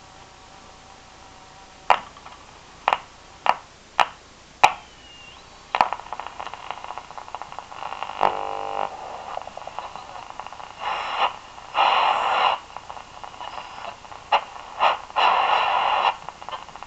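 Philips BX680A valve radio hissing with static while being tuned between stations: several sharp crackles in the first few seconds and a short whistle about five seconds in, then bursts of noisy, garbled signal fading in and out.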